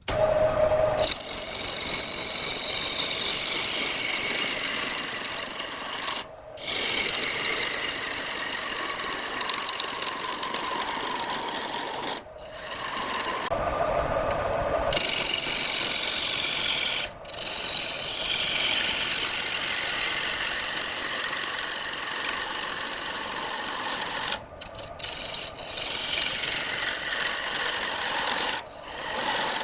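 Wood being scraped by a hand-held turning tool as it spins on a wood lathe, a continuous rasping with a wavering pitch, broken off briefly about five times.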